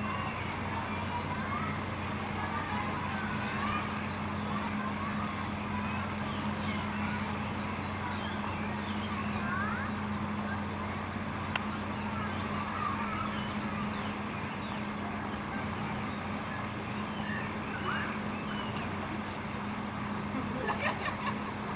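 Outdoor crowd ambience: a steady low hum under faint, scattered voices of distant visitors, with a single sharp click partway through and a few quick knocks near the end.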